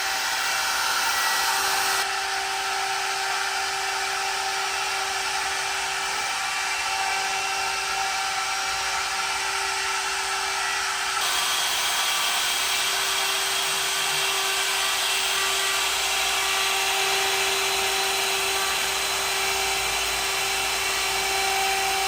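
Large CNC router's spindle running, a steady whine over a wide hiss. The sound shifts abruptly about two seconds in and again about eleven seconds in.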